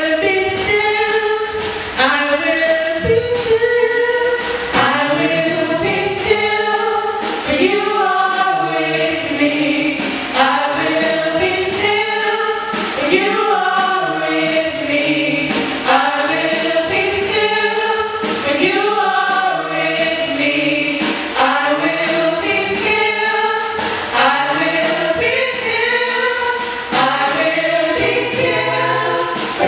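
Youth gospel choir singing together into handheld microphones through a sound system.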